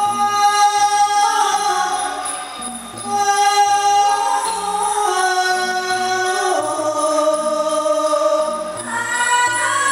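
A singer's voice holding long, sliding melodic notes through a microphone and PA, over live accompaniment with a regular low drum beat, in the style of Thai likay theatre song.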